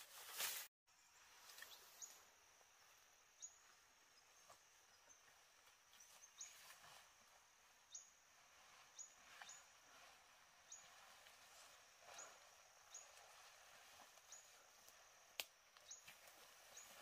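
Faint outdoor ambience with a short, high-pitched chirp repeated about once a second, each chirp dropping at its end. A single sharp click about three-quarters of the way through.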